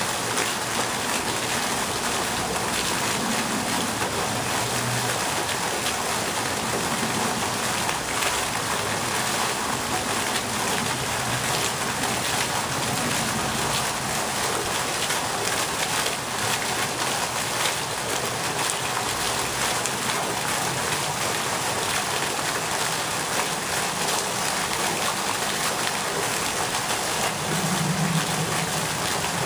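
Ornamental pond fountain's vertical water jet splashing back onto the pond, a steady hiss of falling water.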